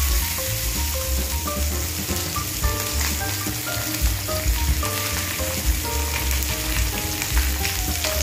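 Whole seasoned chicken frying in a stainless steel pan: a steady sizzle, with the scrapes and taps of a slotted metal spatula pressing and turning it against the pan.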